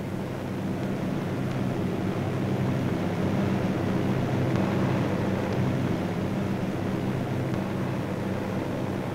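Steady drone of a B-24 Liberator bomber's four radial engines heard from inside the aircraft, growing a little louder over the first couple of seconds.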